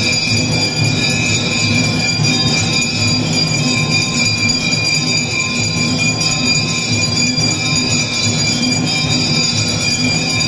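Temple bells ringing without a break, a loud, steady metallic din of many overlapping ringing tones, the accompaniment to an evening aarti.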